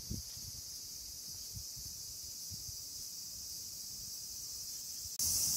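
Insects chirring in a steady high-pitched drone, which jumps suddenly louder near the end.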